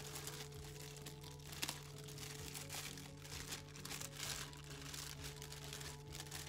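Thin plastic bag of English muffins crinkling as it is unwrapped and lifted, with a sharper crackle about a second and a half in.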